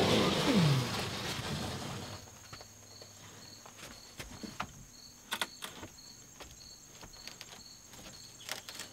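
A large fiber-cement siding sheet scraping and rubbing against the house wrap as it is swung up onto the wall, for about the first second and a half. Then a few light knocks as it is settled into place, over crickets chirping steadily at about two chirps a second.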